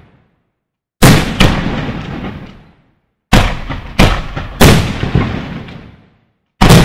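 Aerial firework shells bursting in a pyrotechnic display: loud, sharp bangs, each trailing off into a rumbling echo. They come in three quick groups, two bangs about a second in, three more from about three seconds in, and one near the end, with short stretches of dead silence between.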